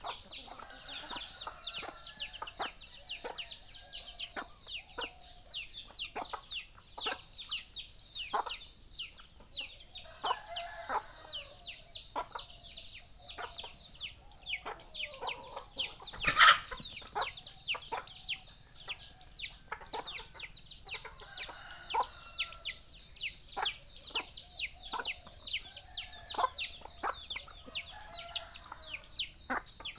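Domestic chicks peeping continuously, many short high notes each falling in pitch, several a second, with a hen clucking in lower tones now and then. One louder, sharp sound stands out about halfway through.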